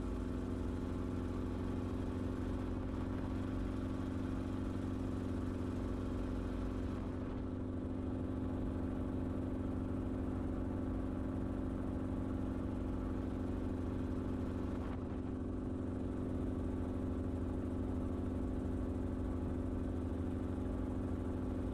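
Steady drone of an Enstrom helicopter's engine and rotor system in flight, heard from inside the cabin: a constant, even hum with a strong steady tone.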